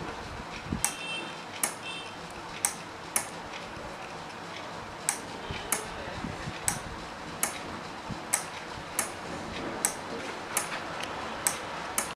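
5 V relay on a hand-built LDR automatic night-lamp circuit clicking over and over, about fourteen sharp clicks at uneven gaps of half a second to a second, as a hand shades and uncovers the light sensor and the relay switches the bulb on and off. A steady hiss lies underneath.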